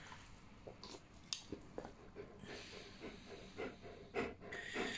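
Dog panting softly close to the microphone, an even run of quick breaths at about two or three a second, with a couple of light clicks about a second in.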